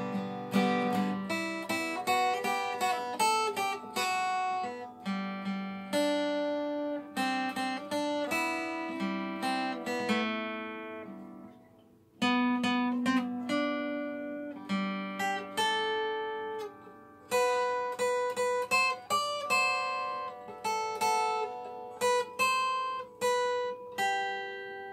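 Acoustic guitar playing an instrumental break between verses of a Korean ballad: picked notes and chords, each ringing out. About halfway through the playing dies away almost to nothing, then starts again.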